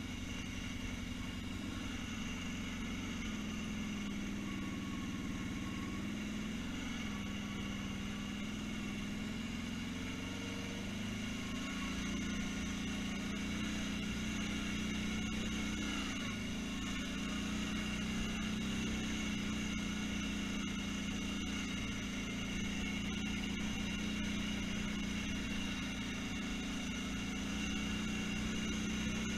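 ATV engine running at low speed, a steady drone whose pitch rises and dips slightly as the vehicle drives along a grassy trail.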